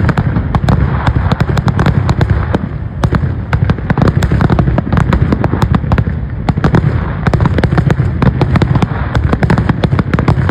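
Continuous barrage of aerial firework shells bursting overhead, many sharp bangs a second with no pause.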